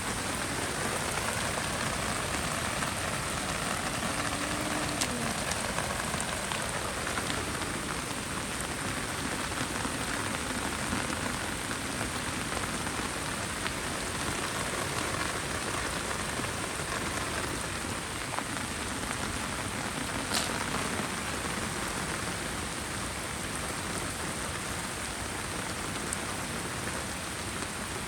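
Heavy rain falling steadily, an even hiss of drops, with a couple of brief sharp clicks.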